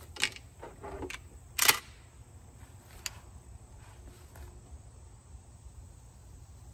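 Semi-automatic shotgun being handled on a shooting rest: a few light clicks, then a sharper metallic clack about a second and a half in, as the gun is loaded and its action closed. A single faint click follows a little later, then only quiet outdoor background.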